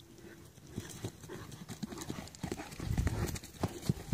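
Great Danes' paws thudding irregularly on dirt and gravel as they run about, growing louder and heavier about three seconds in.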